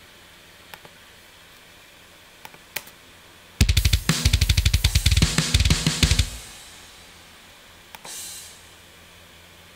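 Sampled software drum kit playing back a fast drum pattern, about nine hits a second, for about two and a half seconds starting just past a third of the way in. Near the end one short bright drum hit sounds: a single MIDI note auditioned to find out which drum it triggers.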